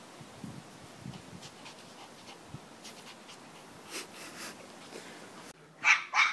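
Pomeranian puppy playing on grass: faint rustling and small soft knocks, then two quick, loud yips in a row near the end.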